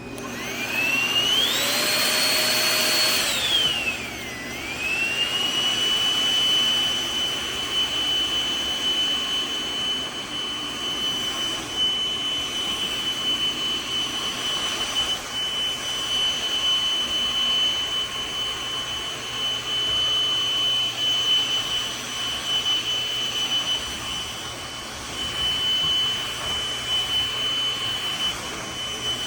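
Cordless stick vacuum switched on: its high-speed motor spins up to a high whine over steady rushing air, dips sharply about four seconds in, then settles into an even whine at a slightly lower pitch.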